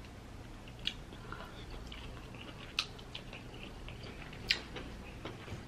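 Quiet chewing of crab, with a few sharp clicks and crackles as crab-leg shells are picked through by hand; the clearest come about one, three and four and a half seconds in.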